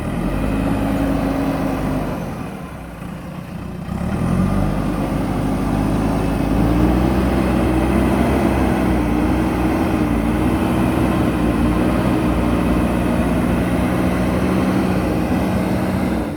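JCB backhoe loader's diesel engine running under load. It eases off about two seconds in, revs back up at about four seconds, and then holds steady at high revs while the machine pushes.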